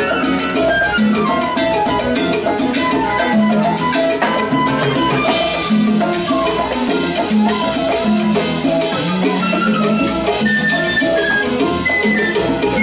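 Live salsa band playing: a flute plays a solo line of quick note runs over electric bass and timbales.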